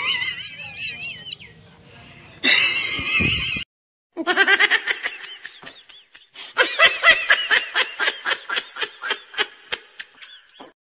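High-pitched laughter: wavering squeals at first, then after a short gap a long run of quick repeated 'ha' sounds that speed up toward the end.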